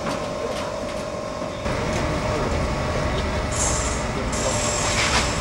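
Steady low machinery rumble with a constant hum through it. The sound changes abruptly about a second and a half in, and the rumble becomes heavier.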